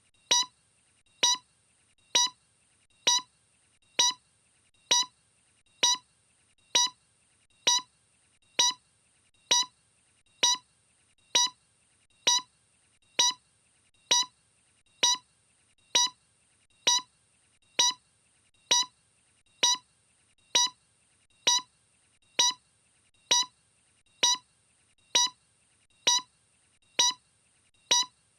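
A short electronic beep repeating at an even pace, a little more than once a second, all at the same pitch.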